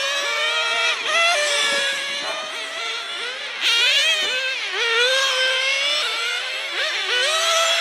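Several 1/10-scale nitro RC cars' small glow-fuel engines running at high revs, a high whine that rises and falls in pitch as the cars accelerate and brake around the circuit. A sharp rising rev bursts in a little before halfway.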